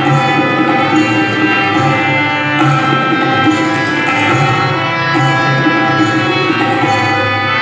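Tabla playing in Indian classical style, with a held melodic accompaniment.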